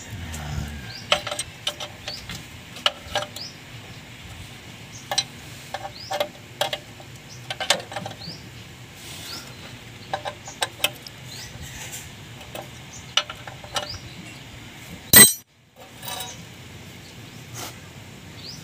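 Scattered metal clinks and taps of hand tools against a clutch pressure plate and flywheel, as the pressure plate is bolted on and the clutch disc centred during a clutch and release-bearing job. One louder knock comes about 15 seconds in.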